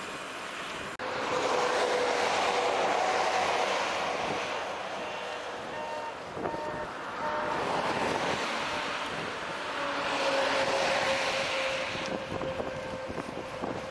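Wind rushing over the microphone of a camera on a moving bicycle, with road traffic going by on a multi-lane road. The rushing noise swells twice, about a second in and again about ten seconds in.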